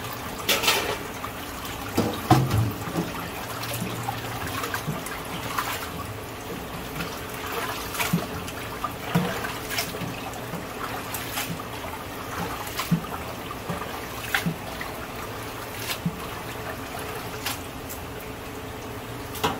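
Water sloshing and splashing in a stainless steel sink as hands stir and rinse thawed squid pieces in a metal bowl, with many short splashes and knocks along the way.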